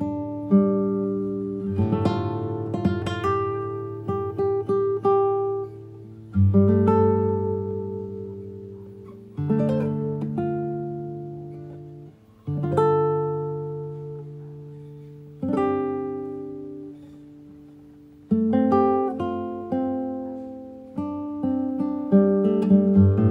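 Slow acoustic guitar music: a chord or short run is plucked every few seconds and left to ring out and fade.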